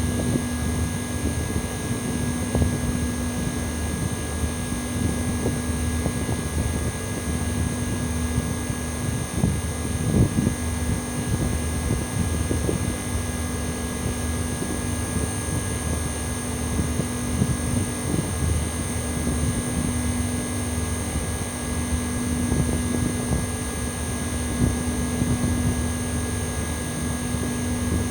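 Outdoor unit of a Mitsubishi Electric Mr.SLIM commercial air conditioner, thought to be an early-1990s 10-horsepower model, running steadily in cooling mode. A high-pitched metallic whine and a distinctive mid-pitched hum hold steady over an uneven low rumble.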